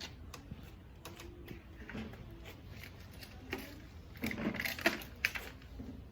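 Objects being handled and rummaged through: scattered clicks and rustles, with a busier burst of rattling and two sharp knocks about four to five seconds in.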